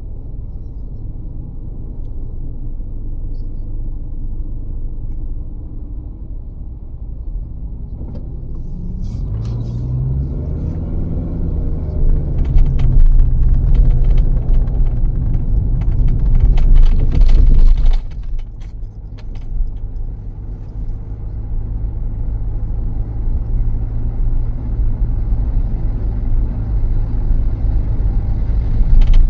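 A car driving, with a steady low rumble of road and engine noise. About a third of the way in, it grows louder for some nine seconds: an engine note rises and then falls in pitch, with clicks and light rattling. It then drops back to the steady rumble.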